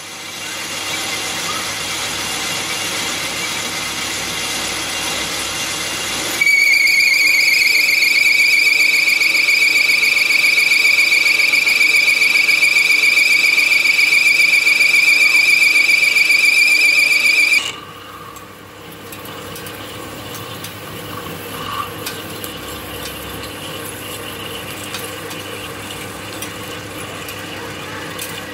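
Metal lathe turning a metal bar, with the cutting tool hissing against the work. About six seconds in the tool sets up a loud, steady, high-pitched squeal that cuts off suddenly about eighteen seconds in, leaving the lathe running more quietly.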